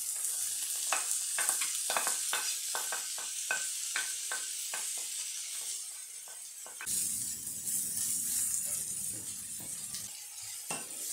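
Diced green peppers and onions sizzling in hot oil in a frying pan. A wooden spoon knocks and scrapes repeatedly over the first several seconds as the peppers are pushed off a plate, then stirs them through.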